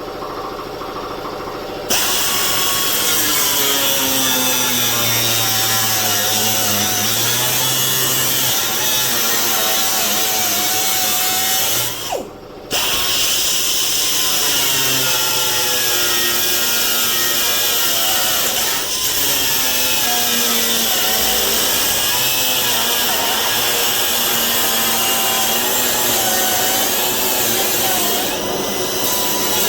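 An electric power tool cutting out sheet-metal blanks. Its motor runs quietly at first, then cuts in loudly about two seconds in, its pitch wavering as it works through the metal. It breaks off for a moment about twelve seconds in before cutting on.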